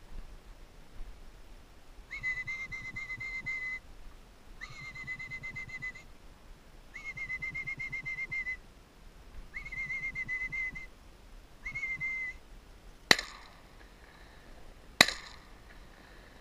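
Five steady whistled notes, most about a second and a half long, then two shotgun shots about two seconds apart.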